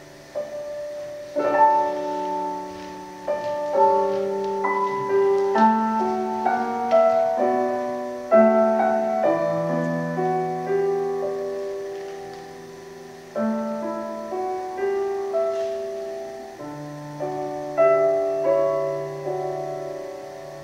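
Solo piano playing chords struck about once a second, each left to ring and fade, with a short lull about halfway through.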